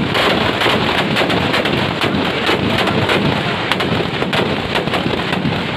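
Firecrackers packed inside a burning Ravan effigy going off in a rapid, continuous string of bangs and crackles.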